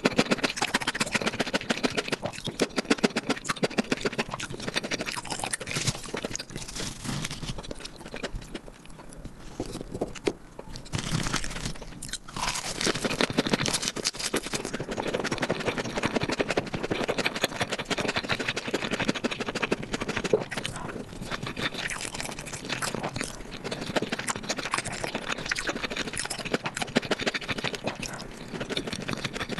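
Close-miked ASMR eating sounds: wet chewing and crunching of saucy marinated meat and fresh lettuce wraps, a dense run of smacking and crackling, thinning for a few seconds partway through.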